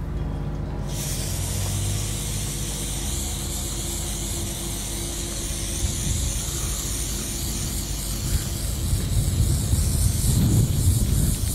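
Aerosol spray can of propeller paint hissing steadily as a coat is sprayed onto a propeller blade, starting about a second in. Low rumble joins in the last few seconds.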